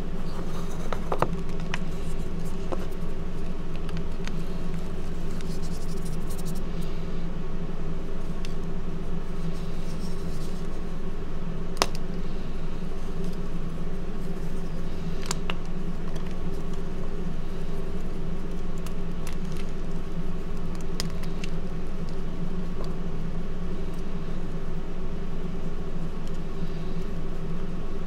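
Hands crumbling and squeezing soft reformed gym chalk, with scattered crisp cracks and crunches as pieces break. A steady low hum runs underneath and is louder than the chalk.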